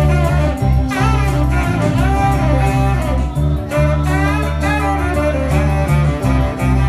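Live band with a saxophone playing a lead line of bending, gliding phrases over electric guitar, a steady bass and drums.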